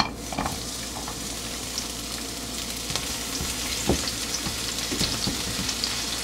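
Onion slices sizzling in hot olive oil in a nonstick pan: a steady frying crackle, with a few knocks as the spatula moves them in the pan.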